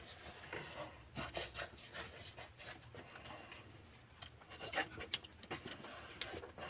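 Noodles being slurped and chewed by hand-fed mouths close to the microphone, with scattered short smacking and breathing sounds.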